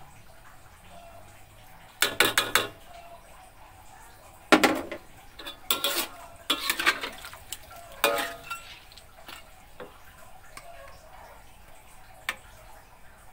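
Metal spatula clanking and scraping against a metal wok as a pan of catfish in sauce is stirred. The clanks come in a few short bursts of quick strokes, with one last single clank near the end.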